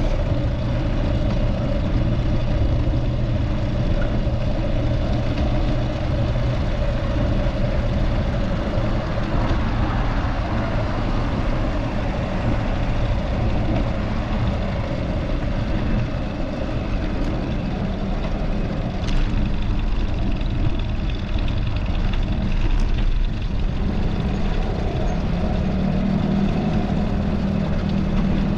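Steady road and wind noise from riding a bicycle along a city street, with motor traffic running alongside.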